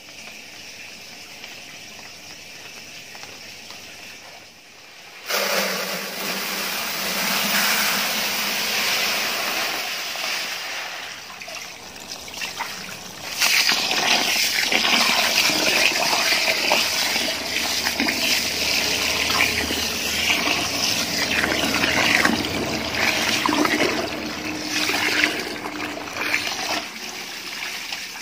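Water from a hose gushing and splashing into a plastic tub of raw rice, filling it to wash the rice. The rush starts suddenly about five seconds in and gets louder about halfway through.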